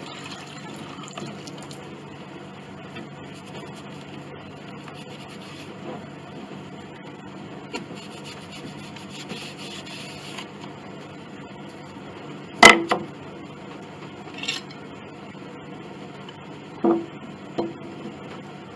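A rag rubbing over the wet, glued rosewood veneer of a piano rim as excess glue is wiped off. This is followed by several sharp knocks and clanks as a metal clamp and wooden cauls are set to hold a loose veneer piece. The loudest knock comes about two-thirds of the way through.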